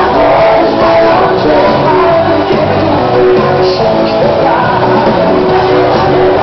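Loud band music with singing and shouts.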